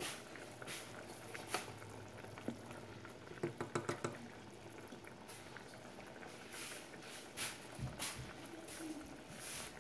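Saucepan of Spanish rice boiling in its cooking water, a steady bubbling hiss with scattered small pops. About three and a half seconds in, a spoon stirs the pot, with a quick run of metal clinks against the pan's side.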